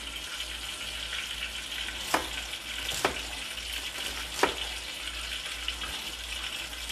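Kitchen knife cutting onion on a chopping board: three sharp taps, over a steady hiss.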